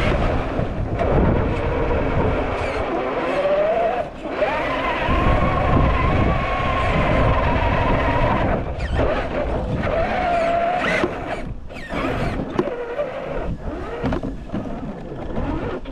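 Traxxas TRX4 RC crawler's electric motor and geared drivetrain whining as it drives, the pitch rising and falling with the throttle and held steady for a few seconds midway. Sharp knocks and clatter come in the second half, from the truck working over rough terrain.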